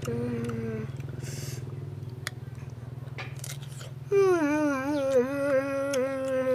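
A person humming a drawn-out 'mmm' while chewing a jujube: a short hum at the start, then a louder, long one about four seconds in that drops slightly in pitch and wavers as it holds. A steady low motor hum runs underneath, with a few light clicks.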